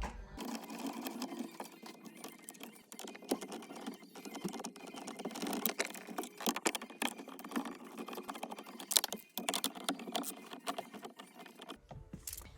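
Rapid, irregular clicking, tapping and rattling of plastic dash trim and metal as the factory Subaru BRZ head unit is worked loose from its mount, with a few sharper clacks along the way.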